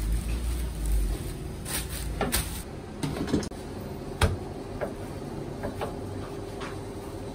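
A handful of irregular knocks and clicks, the sharpest about four seconds in, over steady background noise.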